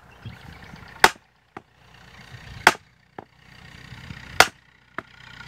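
Hammer blows on a wooden fence post, nailing a fastener in: three loud, sharp strikes about a second and a half apart, each followed by a lighter tap.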